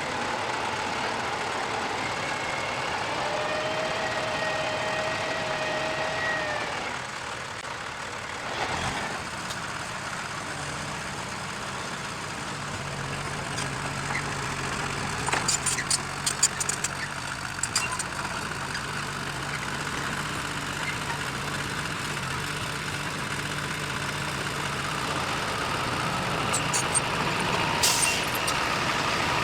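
Heavy earth-moving machinery's diesel engine running steadily, with a high whine lasting about four seconds near the start and a run of sharp clicks and knocks around the middle and again near the end.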